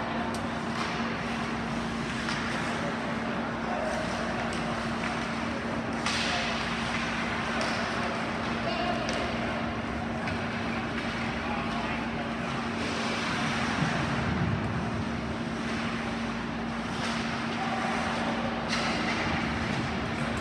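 Ice hockey rink ambience: indistinct voices of spectators and players over a steady low hum, with a few brief louder moments of play noise.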